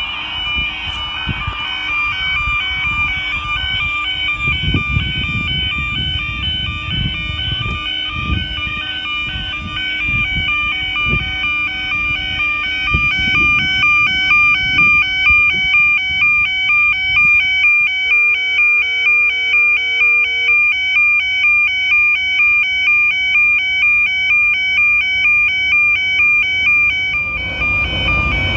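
Railway level crossing warning alarm sounding: a repeating two-tone electronic wail, louder from about halfway through. Near the end a diesel shunting locomotive's engine rumbles up to the crossing.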